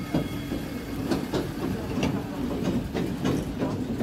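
Road tourist train, a wheeled land train, passing close by: its engine running under a stream of irregular clicks and knocks from the open trailers rattling over cobblestones.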